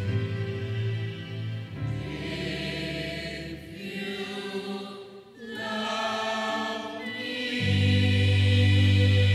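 Church choir singing long held chords over a steady bass, with a quieter stretch about five seconds in, then a full low chord swelling in near the end.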